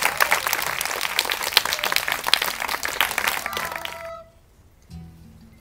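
Audience clapping, which cuts off suddenly about four seconds in.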